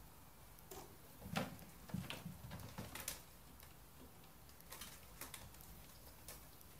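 A young kitten's claws scrabbling and gripping on a sisal-rope scratching post as it climbs, heard as a cluster of soft thumps and scratchy clicks about one to three seconds in, then a few fainter clicks.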